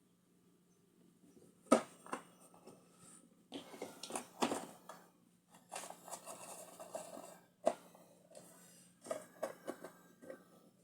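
Irregular handling sounds: a few sharp knocks and clicks with stretches of rustling, the loudest knock about two seconds in.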